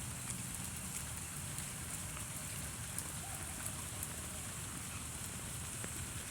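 Steady rain falling, a hiss with scattered drops ticking.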